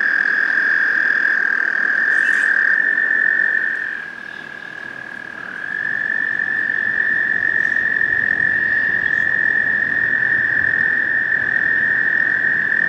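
American toads trilling: a long, steady, high-pitched trill. About four seconds in it drops to a fainter trill, and a second loud trill starts a second and a half later and carries on.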